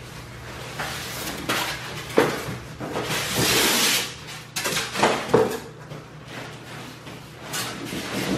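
Packing being pulled out of a large cardboard box: a styrofoam block and cardboard sheets scraping and rubbing against the box, with a few sharp knocks. The loudest part is a long scrape about three to four seconds in.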